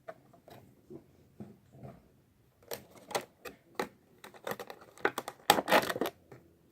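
Cardboard box and plastic packaging of a Funko Pop figure being handled and pulled open: irregular small clicks, taps and crinkles, busiest and loudest about five to six seconds in.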